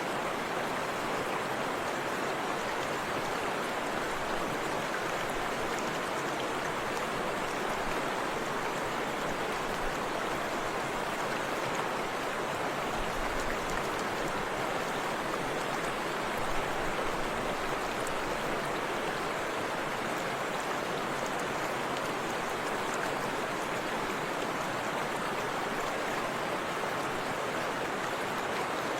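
Forest river rushing steadily over a waterfall, a continuous even hiss of falling and flowing water.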